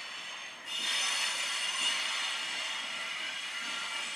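Wheels of a loaded coal train of HXA hopper wagons squealing on the rails as the train rolls away: a steady, high-pitched squeal of several tones over rumbling rail noise, getting louder about a second in.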